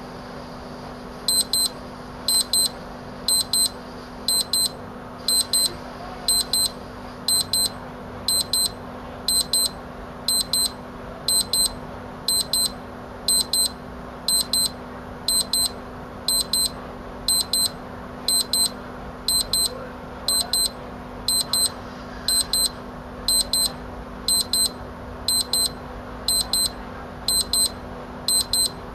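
Electronic alarm clock sounding its standard alarm: high-pitched double beeps repeating about once a second, starting about a second in, over a steady low hum.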